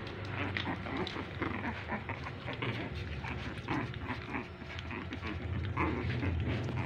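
Puppies whimpering and yipping in many short, high squeaks while they tussle, over a steady low hum.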